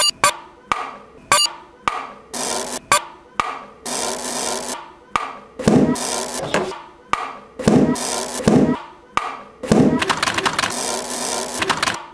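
A collage of short everyday sounds cut one after another: a brass hand bell rings briefly at the start, followed by a quick series of knocks, scrapes and noisy rustles, with a few heavier thuds in the middle.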